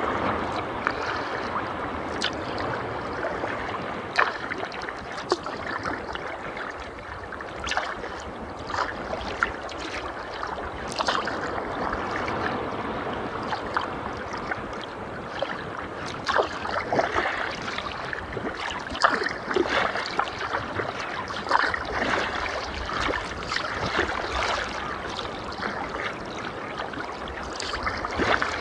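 Sea kayak under way: paddle blades dipping and splashing and water lapping against the hull, with irregular small splashes and knocks.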